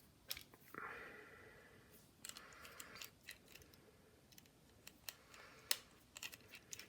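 Faint scattered clicks and soft scrapes of small tools working an iPod Nano 5th generation's glued-down panel loose against strong adhesive. One sharper click comes near the end.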